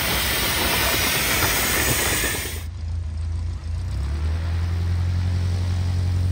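Narrow-gauge steam locomotive hissing steam as it runs along the track. About two and a half seconds in, this cuts off abruptly to a single-engine propeller light aircraft's piston engine running steadily at low power as it taxis, a low even hum.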